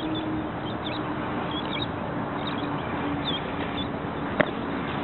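A softball smacks into a fielder's leather glove once, about four seconds in, over a steady background hiss with faint bird chirps.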